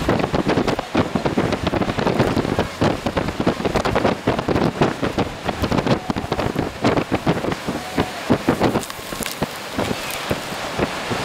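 Storm-force wind with rain driving against the microphone, a dense, irregular crackle of hits; about ten seconds in it settles into a steadier rush of wind.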